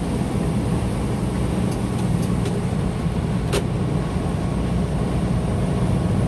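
Steady low drone of a semi-truck's diesel engine and road noise heard inside the cab at highway speed, with a few light ticks near the middle.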